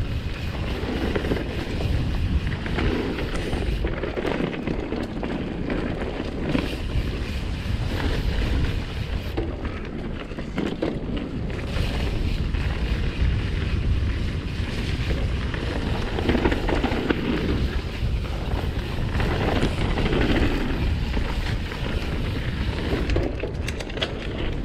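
Mountain bike running fast down a dirt singletrack, recorded on an action camera: tyres rumbling over the dirt, the bike rattling with occasional knocks over bumps, and wind rushing on the microphone.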